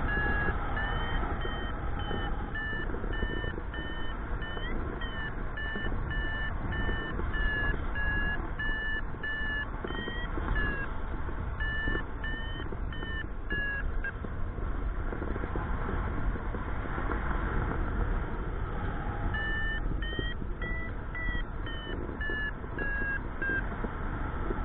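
Paragliding variometer beeping about twice a second in a high tone, the sign that the glider is climbing in lift; the beeps stop for about five seconds past the middle and then start again. Steady wind noise on the microphone under it.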